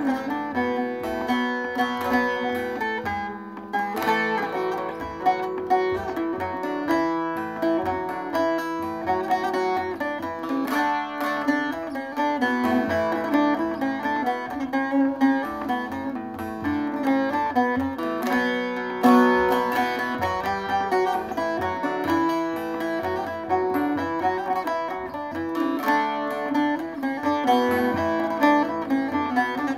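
Long-necked bağlama (uzun sap saz) played with a plectrum: a continuous Turkish folk melody of quick plectrum strokes, with steady lower notes ringing beneath it.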